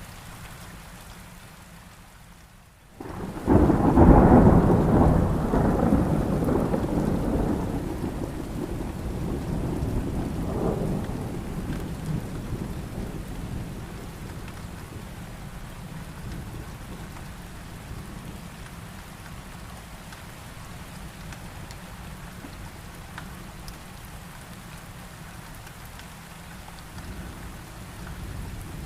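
Steady heavy rainfall, broken about three seconds in by a sudden loud thunderclap. The thunder rumbles on and slowly fades over the next ten seconds or so, with a second smaller swell of rumble, before only the rain is left.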